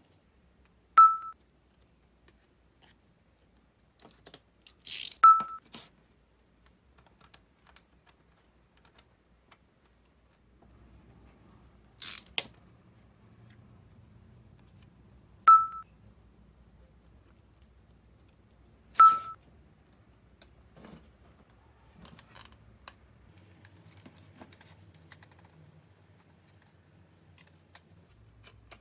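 White split-flap display flap cards being handled: four sharp clicks, each with a brief ringing tone, spread a few seconds apart. Two short rustling crackles come about five and twelve seconds in.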